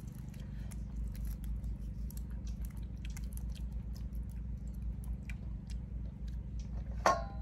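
A person chewing balut close to the microphone: many small, scattered wet mouth clicks and smacks over a steady low hum, with a short vocal sound near the end.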